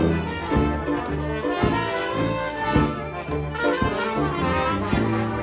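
Traditional jazz band playing at a steady beat: two trombones lead over upright piano, upright bass and drums.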